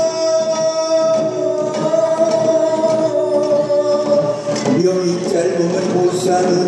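A man singing a Korean traditional ritual chant, holding one long note that sags slightly, then dropping about four and a half seconds in to a lower, wavering note, with light percussion behind.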